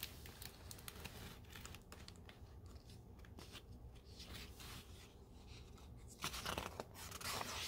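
Pages of a hardcover picture book being handled and turned: faint paper rustles and light taps, then a louder rustle as a page is lifted and turned near the end.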